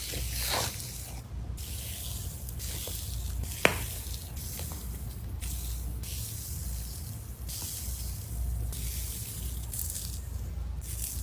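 Slime being squished and stretched by hand, giving wet, sticky, crackling sounds that come and go every second or two, with one sharp click about four seconds in.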